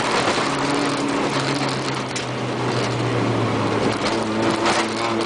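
Car engine running at a steady pitch while driving, heard from inside the cabin, under a heavy wash of tyre and road noise on a dirt track with scattered clicks and rattles.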